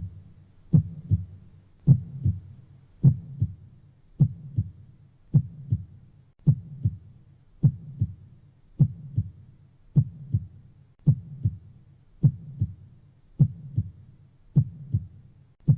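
Human heartbeat: a slow, steady lub-dub, each beat a louder low thump followed closely by a softer one, about 52 beats a minute.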